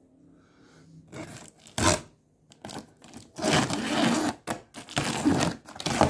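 Cardboard shipping carton being pulled open by hand: tearing and scraping of the cardboard flaps in several noisy bursts, the longest in the second half.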